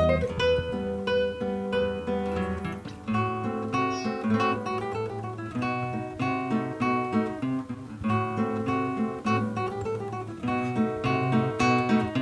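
Solo nylon-string classical guitar playing a piece of quick plucked notes.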